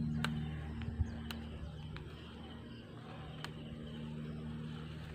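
Faint outdoor background with a low, steady motor hum that fades away over the first second or two, and a few sharp clicks.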